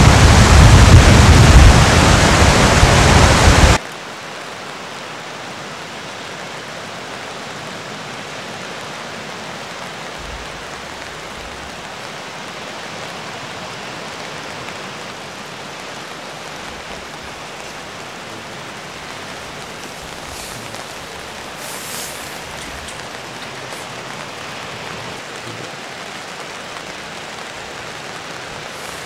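Loud rushing of breaking surf with wind on the microphone. About four seconds in it cuts off abruptly to a much quieter, steady hiss of distant surf.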